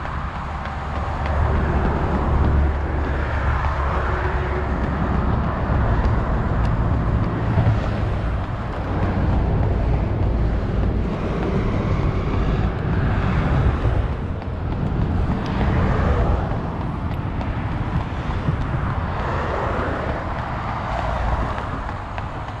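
Road traffic: vehicles passing on the road alongside, one after another, over a steady low rumble.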